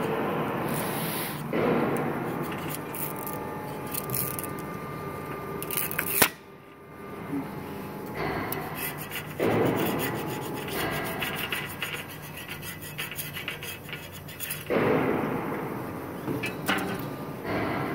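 A flat metal hand scraper scraping and rubbing over the steel cutting plate of a die-cutting machine in several spells, with a sharp knock about six seconds in and a steady machine hum underneath.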